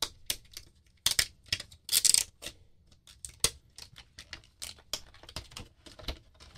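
A Surface Type Cover box being opened and its packaging handled: an uneven run of clicks, taps and scrapes, with longer scraping rustles about a second and two seconds in.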